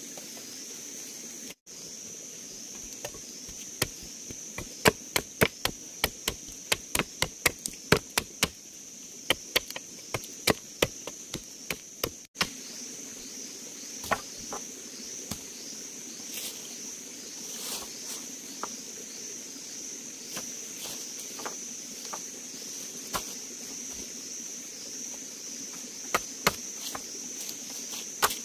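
Machete chopping a green wooden stick: sharp strikes in quick runs, thickest in the first half and more scattered later. A steady high insect drone runs underneath.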